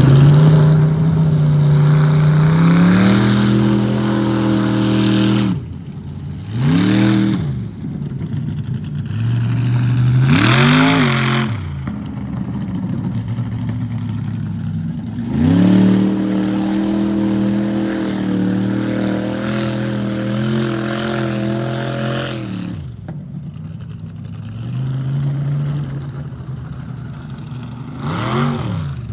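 Jeep engine revving hard under load in mud, held at high revs for several seconds at a time. In between come short throttle blips that rise and fall quickly, three of them, the last near the end.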